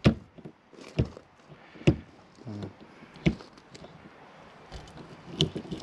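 Sharp clicks and knocks from a motorhome's rear garage door and its twist-lock handles as the door is pressed shut and the locks are turned and keyed: about five separate clicks, the loudest right at the start and a little under two seconds in.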